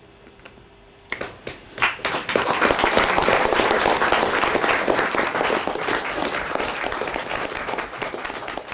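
Audience applauding: a few separate claps about a second in, then full applause that slowly dies down.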